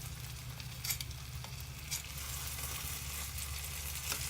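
Turon (sugar-coated banana spring rolls) frying in hot oil in a pan: a steady sizzle with a few sharp pops, over a low steady hum.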